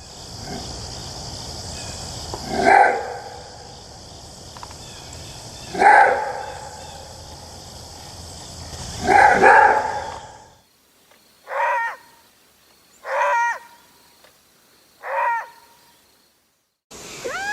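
Maned wolf roar-barks: three loud, deep barks about three seconds apart over a steady high hiss. After a short break come three shorter, cleaner barks about a second and a half apart.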